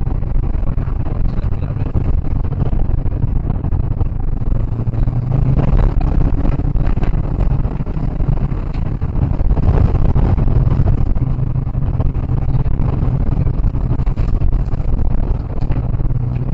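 Rally car driven on a gravel track, heard from inside the cabin: a loud, steady engine drone mixed with the rumble of tyres on gravel, and a few knocks from bumps. The recording distorts from the loudness.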